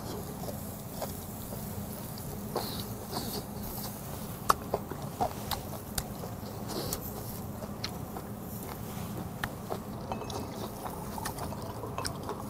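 Metal tongs clicking against a charcoal grill grate as pieces of grilling beef tongue are turned, scattered sharp clicks over a low, steady background.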